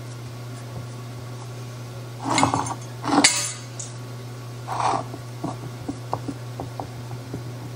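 A pie dish knocking and scraping on a countertop as it is shifted about, three short clatters with the second the loudest, followed by a few light taps as fingers press oily pie-crust dough against the dish.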